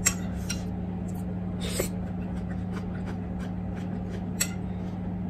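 Metal spoon clicking and scraping against a foil food tray and dishes a few times, with a brief rustle of the foil, over a steady low hum.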